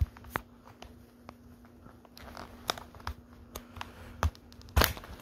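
Plastic snap clips of a remote control's case popping loose as a thin plastic wedge is worked along the seam: a string of sharp clicks and snaps at irregular intervals, the loudest a little before the end.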